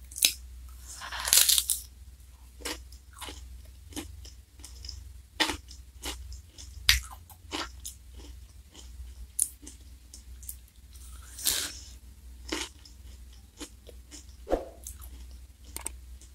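Close-up ASMR eating of an ice cream in a crisp black wafer cone: irregular crunching bites and chewing with wet mouth sounds. A low steady hum runs beneath.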